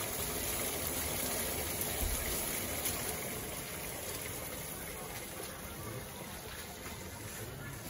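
Steady rushing noise, easing off slightly toward the end.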